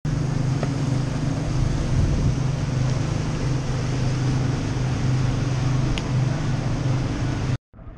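Twin outboard motors on a center-console boat running steadily underway, with a constant rush of wind and water over it. The sound cuts off suddenly just before the end.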